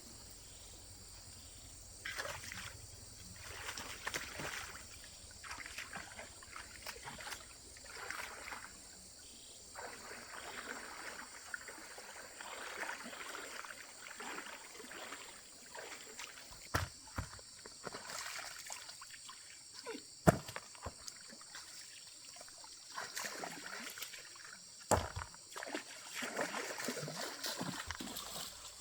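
Water sloshing and trickling in irregular bursts, with a few sharp knocks, the loudest about two-thirds of the way through.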